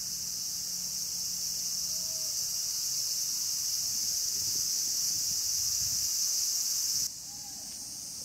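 Cicadas buzzing in a steady, high-pitched chorus. About seven seconds in the drone drops suddenly to a quieter level and carries on.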